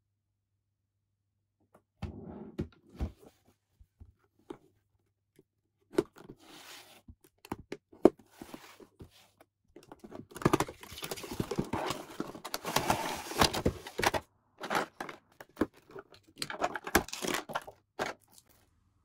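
A cardboard figure box handled and opened, with scattered knocks, a sharp snap about eight seconds in, then clear plastic blister packaging crinkling loudly through most of the second half as the figure is taken out of its tray.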